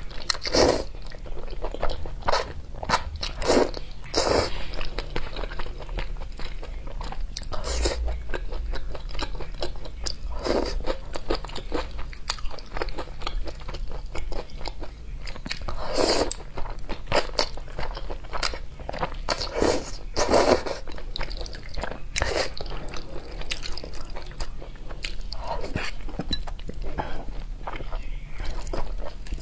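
Close-miked mouth sounds of a person eating thick noodles in a spicy sauce: steady wet chewing and smacking, broken by several longer slurps as strands are drawn in.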